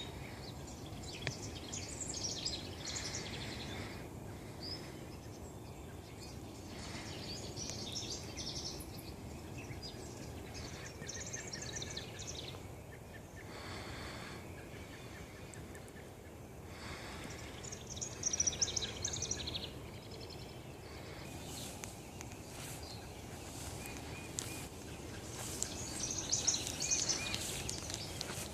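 Several songbirds chirping and singing in short, repeated phrases, over a steady low background rumble.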